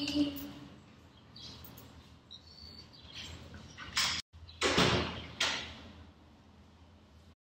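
Handling noise from the recording device: a short squeak that stops about half a second in, then rustles and bumps, loudest around the middle. The sound drops out briefly once, then cuts off abruptly near the end.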